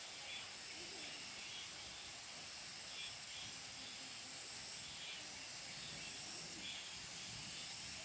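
Steady high-pitched hiss of outdoor forest ambience, with faint calls recurring high up and faint distant voices underneath.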